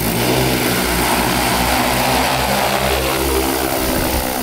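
Large four-rotor agricultural spray drone's propellers whirring loudly and steadily as it lifts off and climbs, a dense hum with several held tones over a rushing hiss.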